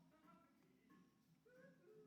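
Near silence, with very faint background music.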